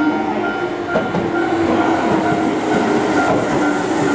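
Keihan 6000-series electric commuter train running at a station: steady rolling noise of wheels on rail with a level motor hum.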